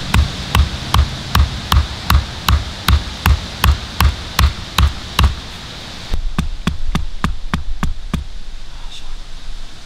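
Wooden stake being hammered into the ground: steady knocks with a dull thump, about two to three a second. The knocking breaks off about five seconds in, then resumes briefly.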